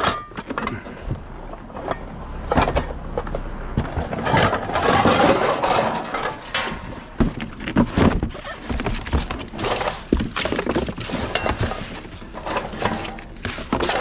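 Metal pots and pans clanking and knocking against each other as they are rummaged through in a box, with irregular clatters and thunks throughout.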